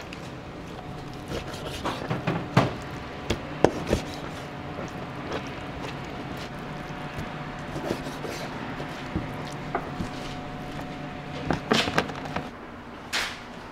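Kitchen knife cutting raw chicken thigh on a plastic cutting board: sharp knocks of the blade striking the board, a cluster a few seconds in and another near the end, over a steady hum of kitchen equipment.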